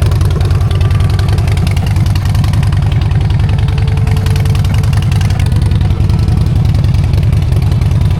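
Harley-Davidson Dyna Street Bob's V-twin engine running at a steady idle, a loud, even, rapid low pulsing.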